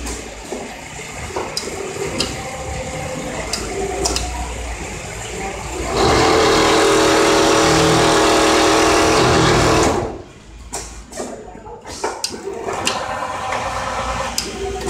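Richpeace automatic template sewing machine running with a steady hum and hiss, loudest for about four seconds in the middle. Quieter stretches either side carry light clicks and handling noise.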